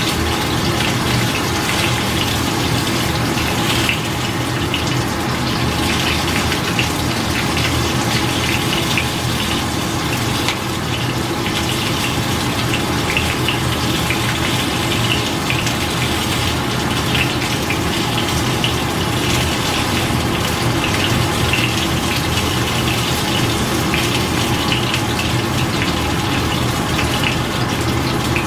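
Pot of water boiling on the stove: a steady rushing noise with a low hum underneath.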